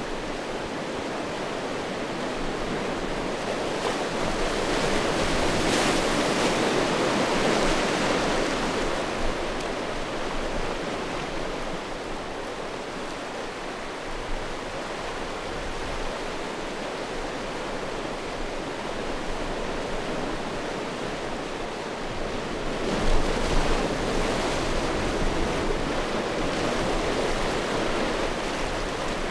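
Sea waves washing onto a stony shore: a steady hiss of surf that swells louder about five seconds in and again over the last several seconds.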